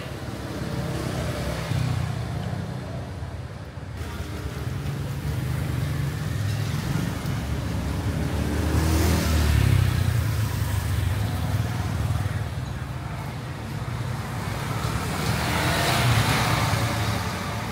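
Motor vehicle noise: a steady low engine rumble that swells twice, about nine and sixteen seconds in, as vehicles pass close by.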